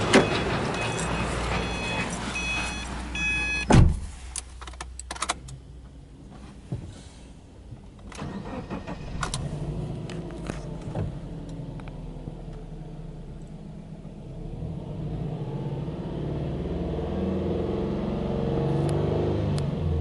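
A few short electronic chimes, then a single heavy thump like a car door shutting. After that, the Subaru Impreza S-GT's turbocharged flat-four idles, heard from inside the cabin, with the revs creeping up gradually over the last few seconds.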